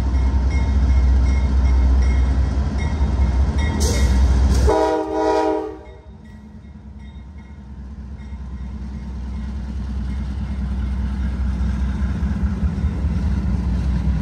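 GE CW44AC diesel freight locomotives running past with a loud low engine rumble. About five seconds in, a train horn sounds briefly and the rumble drops off sharply, then builds again as the next locomotive draws near.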